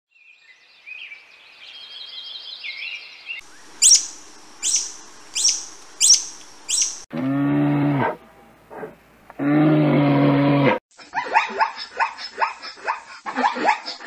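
A run of animal calls. First comes high twittering chirps, then about five sharp high chirps, then two long, low, drawn-out calls about a second apart, and near the end a quick series of short calls.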